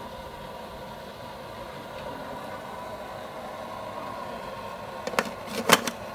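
Steady hiss and hum from an aluminium rice steamer pot on its burner, then a few sharp metallic clanks about five seconds in as the aluminium lid is handled, the clanks being the loudest part.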